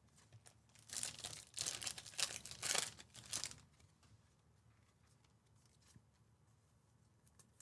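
A Panini Mosaic basketball hobby pack's wrapper torn open by hand: crinkly tearing and crumpling for about two and a half seconds, starting about a second in.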